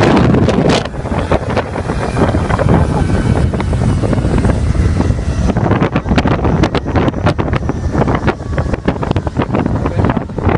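Wind buffeting the microphone of a motorboat under way at speed, very loud in the first second, then in rapid gusts and knocks over a steady low engine and hull rumble.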